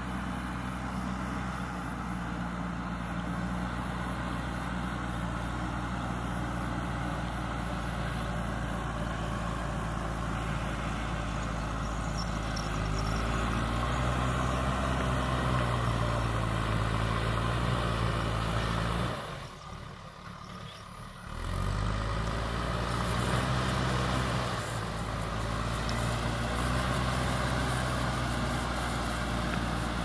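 JCB 3DX backhoe loader's diesel engine running as the machine pushes and levels soil with its front bucket, the engine note rising and falling as it works. About two-thirds through, the sound drops away for a second or two before the engine comes back.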